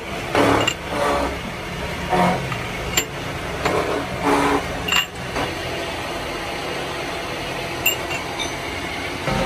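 Short cut steel tube pieces clattering and clinking against a steel machine table as they are gathered by hand, with a few sharp metallic clinks, mostly in the first five seconds. A steady machinery hum runs behind.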